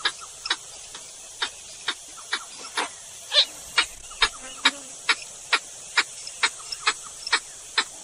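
Purple gallinule calling: a steady run of short, sharp notes, about two a second, over a constant high hiss.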